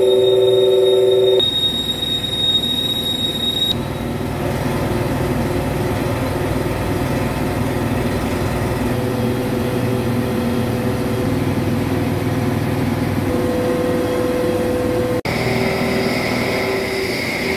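Milling cutter on a large CNC boring and milling machine cutting a chamfer into a steel wheel hub: steady machining noise over the running spindle. A ringing tone stops about a second and a half in, and near the end the sound breaks off abruptly and resumes with a higher, steady whine.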